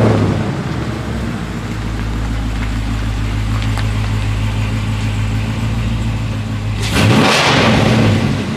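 Dodge Charger Scat Pack's 392 HEMI V8 with long-tube headers and resonator-deleted mid-pipes, idling with a steady low rumble. It is revved once near the end, the pitch rising sharply and the sound growing louder.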